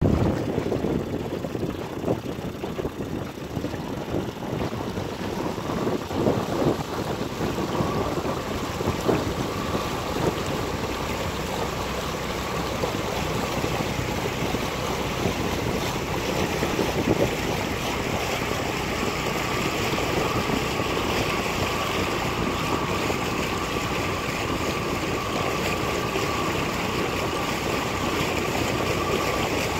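Wind buffeting the microphone over water lapping and splashing, gustier in the first several seconds. A faint steady whine comes in about eight seconds in and holds.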